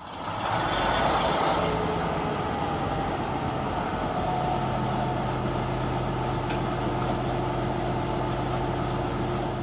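A vehicle engine running steadily, with a brief hiss about a second in; its hum shifts lower about halfway through.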